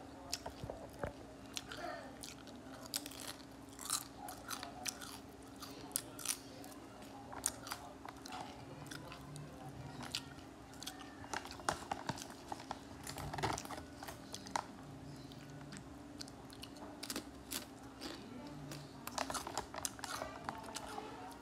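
A cat chewing and biting crunchy tortilla chip pieces: an irregular run of crisp crunches.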